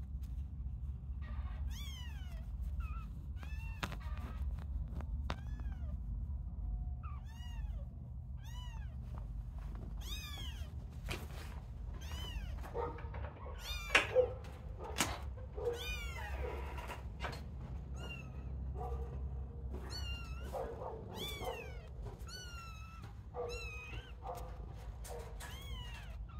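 Young kittens mewing over and over, thin high calls that rise and fall, often overlapping as several call at once. A couple of sharp knocks about halfway through, over a steady low hum.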